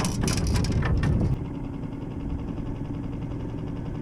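Small 3-horsepower four-stroke outboard motor running steadily at trolling speed. A louder rush of noise with clicks over it stops abruptly about a second in, leaving the motor's even hum.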